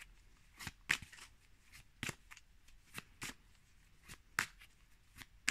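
A deck of tarot cards being shuffled by hand: short, crisp card flicks and slaps at an irregular pace, about two a second.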